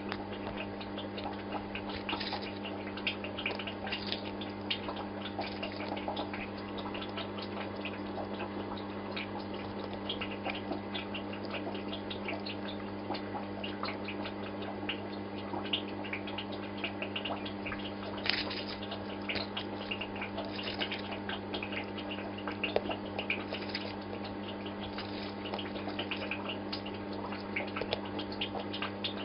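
Home aquarium's filter running: a steady low hum with water trickling and bubbling over it in a dense, even crackle.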